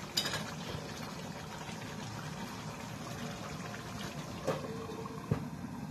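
Thick chicken and potato curry gravy boiling in a pan, a steady bubbling. A sharp knock comes just after the start, and two shorter clinks near the end, one with a brief ring.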